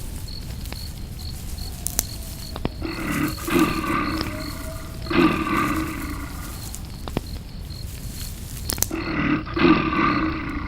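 A large wild animal roars in several short bouts a few seconds apart, over a steady outdoor background with faint regular chirps and a few sharp clicks.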